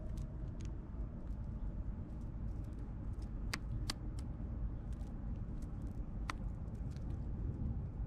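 A crow pecking food off concrete: a few sharp taps of its beak, two close together about three and a half seconds in and one near six seconds, over a steady low rumble of road traffic.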